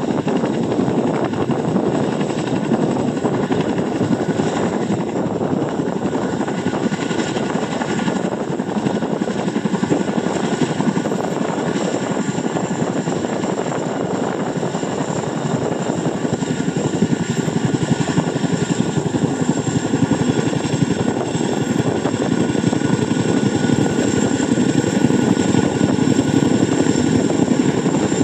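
CH-47 Chinook tandem-rotor helicopter hovering low over water, a loud, steady rotor and engine noise with a thin high whine over it, growing a little louder in the second half.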